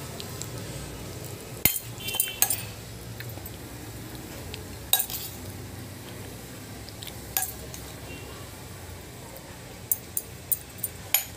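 Stainless steel spoon clinking against a steel bowl and plate while dry puffed-rice bhel is scooped over. There are a few separate clinks, then a quick run of them near the end.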